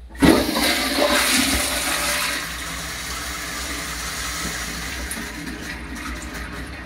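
Kohler Highline pressure-assisted toilet with a Sloan Flushmate 504 flushing a load of about 12 feet of toilet paper. A sudden loud blast of water starts just after the beginning and eases after about two seconds into a steadier, quieter rush of water.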